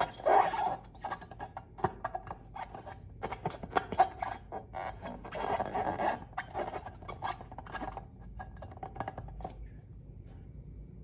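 Slime being squished and worked by hand, making irregular sticky crackles, clicks and squelches. It is busiest in the first second and again around the middle, and thins out in the last few seconds.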